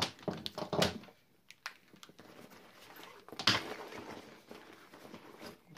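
Handling noise from packing a fabric backpack: a charger cable and its plugs clicking and knocking against the bag several times in the first second, then a louder rustle of the bag's fabric about three and a half seconds in.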